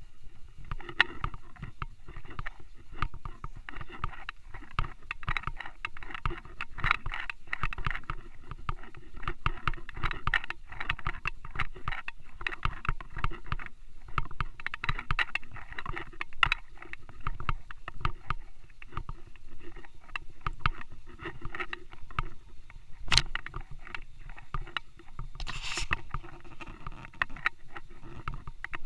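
Wind buffeting an action camera's microphone, with a steady rumble and many irregular handling knocks and rustles as the camera is carried along; one sharp click about 23 seconds in and a brief hiss about 26 seconds in.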